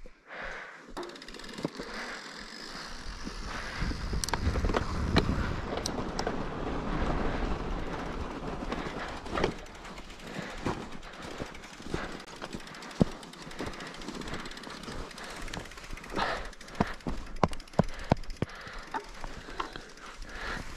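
Mountain bike rolling over snow and ice: steady tyre noise with scattered clicks and rattles from the bike, and wind rumbling on the microphone for a few seconds around the middle.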